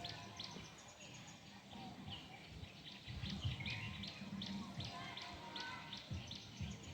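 Small birds chirping: short, sharp, high chirps repeated about two or three times a second, over soft irregular low thumps.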